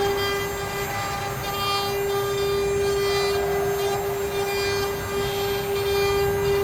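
Spindles of a multi-spindle 4-axis CNC router running with a steady whine while cutting wood. The cutting noise swells and fades about every second and a half.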